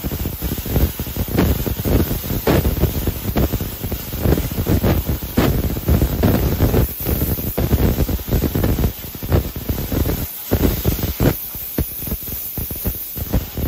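Fiber laser cutter cutting thin sheet metal: a steady hiss from the cutting head, broken by many quick, irregular surges as it traces small shapes one after another.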